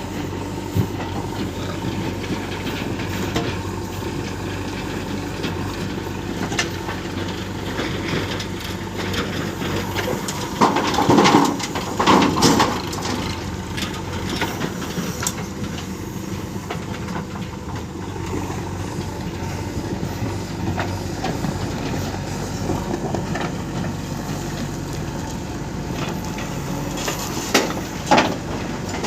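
JCB 3DX backhoe loader's diesel engine running steadily, with two louder surges about eleven and twelve and a half seconds in and a couple of sharp knocks near the end.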